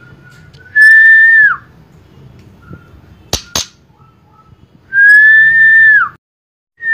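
Young white-rumped shama (F4 murai batu) giving two long, clear whistles, each held on one pitch and then falling at the end: a short one about a second in and a longer one around five seconds in. Two sharp clicks come between them.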